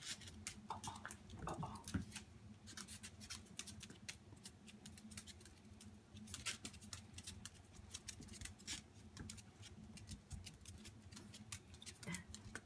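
Claws of two Cairn terriers, a puppy and an adult, clicking and skittering irregularly on a hard wood-look floor as they play, with a couple of short higher-pitched sounds about a second in.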